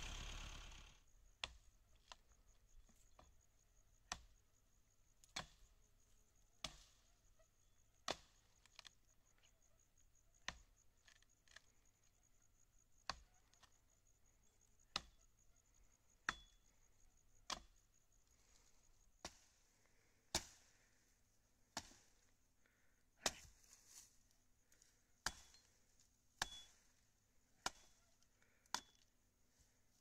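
A running engine cuts out within the first second. Then about twenty sharp, single knocks follow, one every second or so at an uneven pace.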